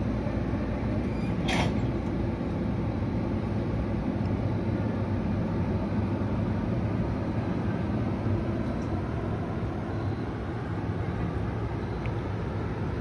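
NJ Transit double-deck MultiLevel passenger coaches rolling past: a steady rumble of steel wheels on the rails, with one sharp clank about a second and a half in.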